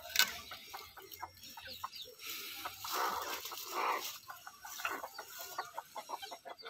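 Wild chicken (junglefowl) clucking in a series of short, soft calls, with small clicks and rustles in between.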